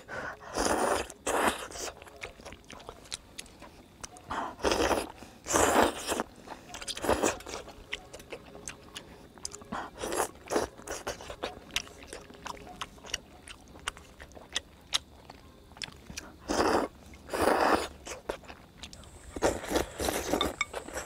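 A person eating starch noodles (粉條) from a bowl: repeated short slurps with chewing between them and light clicks of chopsticks on the bowl, and a sip of broth straight from the bowl near the end.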